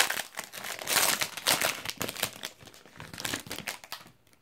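Wrapper of a 2017 Elite football card retail pack being torn open and crinkled by hand: a dense, irregular crackling that stops shortly before the end.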